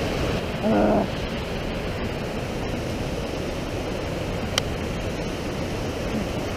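Fast mountain creek rushing and splashing down over granite boulders, a steady, unbroken rush of water.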